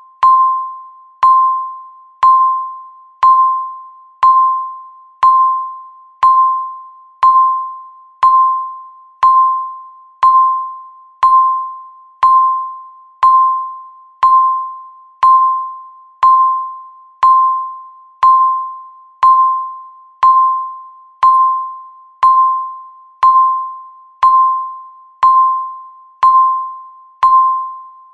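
Countdown timer beeping once a second: a single mid-pitched tone with a sharp start that fades away before the next beep, ticking off the seconds left.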